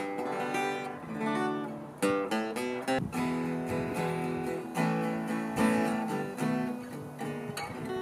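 Tanglewood acoustic guitar, freshly fitted with new strings and a bone nut and saddle, being played: picked chords and single notes that ring on.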